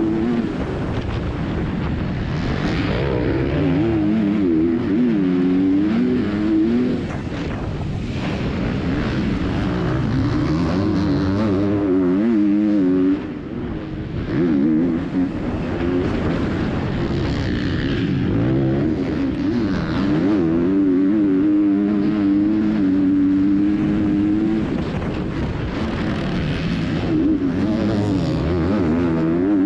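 Onboard sound of a factory KTM MX2 motocross bike's 250 cc single-cylinder four-stroke engine at race pace, heard from a helmet camera. The engine revs up and down over and over through gear changes and corners, and drops briefly off the throttle about halfway through.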